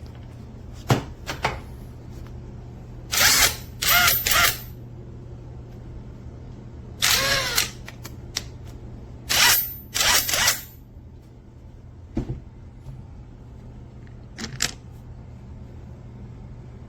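Takuoo cordless brushless 1/2-inch impact wrench run in about five short bursts, each a second or less, with a few clicks between them.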